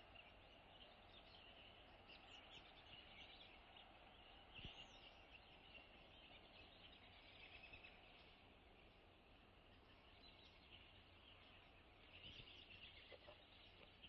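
Near silence: faint outdoor ambience with distant small birds chirping and one soft knock.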